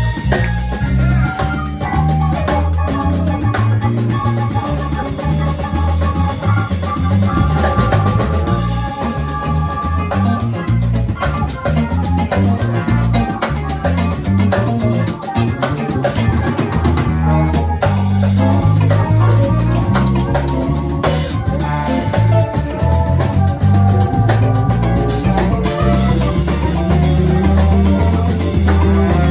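Live band playing an instrumental funk tune: electric bass and drum kit driving a steady groove, with electric guitar and a saxophone and trombone horn section.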